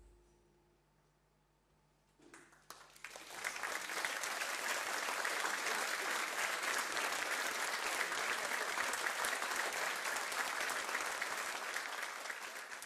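The last ringing note of a percussion ensemble piece fades into near quiet, then an audience breaks into applause about two seconds in, swelling within a second or two to full, steady clapping.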